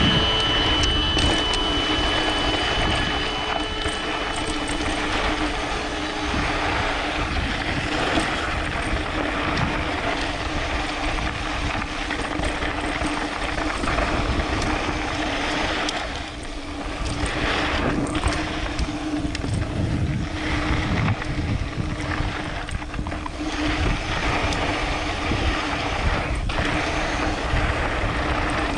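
Mountain bike running fast down a loose dirt trail: a steady rush of wind and tyre noise with a steady hum underneath and occasional knocks as the bike hits bumps.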